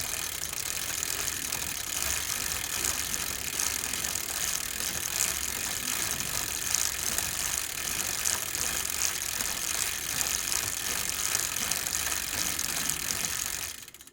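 Bicycle drivetrain being pedaled: the chain and freewheel click rapidly and continuously, fading out near the end.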